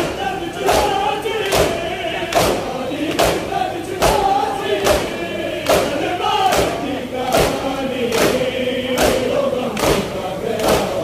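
Crowd of men chanting a noha together while beating their chests in unison (matam): a sharp collective slap about every 0.8 seconds keeping time under the chant.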